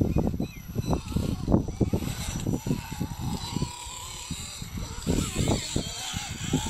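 RC4WD Bully 2 scale rock crawler clambering over rocks: an irregular run of knocks and clatter from its tyres and chassis on stone.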